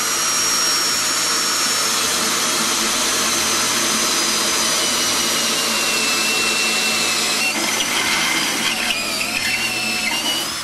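Power drill with a 1¼-inch bit boring through ceramic tile: a loud, steady grinding whine whose pitch sags slowly and turns unsteady about three-quarters of the way in, then cuts off near the end.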